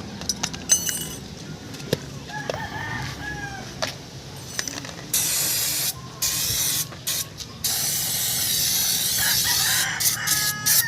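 A rooster crows about two seconds in, and a crowing call is heard again near the end. From about five seconds in come several long bursts of hissing air or spray, separated by short gaps. A few sharp clicks sound in the first second.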